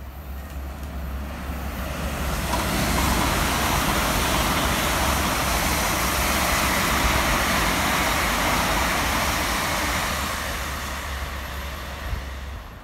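Two coupled Class 720 Aventra electric multiple units passing through the station at speed. The wheel-on-rail and air rush builds over the first few seconds, holds loud for several seconds as the carriages go by, and dies away near the end.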